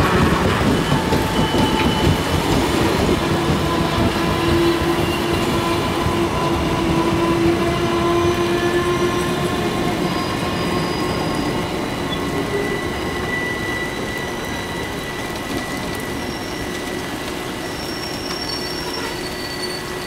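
Passenger coaches of an arriving express train rolling slowly past, wheels and brakes squealing in several long steady tones as the train slows for its halt, getting gradually quieter. Heavy rain hisses underneath.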